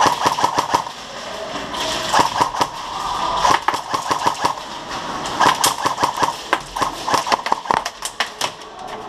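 Airsoft guns firing in rapid strings of shots, several bursts one after another with short gaps between them.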